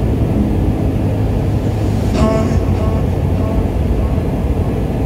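Jet airliner engines and airflow heard from inside the cabin during the climb after takeoff: a loud, steady rumble and hiss. About two seconds in, a brief higher tone sounds over it.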